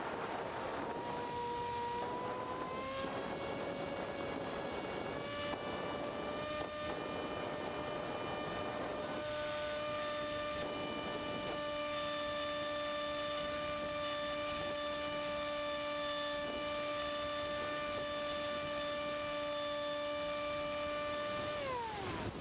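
Multiplex EZ Star model plane's electric motor and pusher propeller heard from the onboard camera: a steady whine that climbs in pitch over the first few seconds, holds, then drops sharply near the end as the throttle comes back. Wind rushes over the airframe throughout, most strongly early on.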